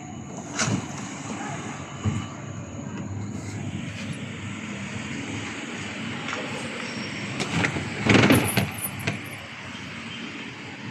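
Handling noises from moving about the truck: a few light knocks, then a louder short clatter about eight seconds in, over a steady background noise.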